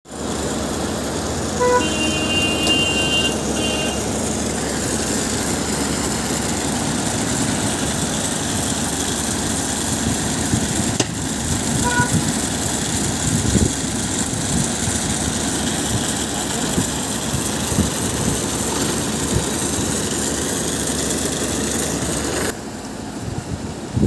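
Loud, steady rushing noise with a vehicle horn sounding for about two seconds near the start and a short beep around twelve seconds in.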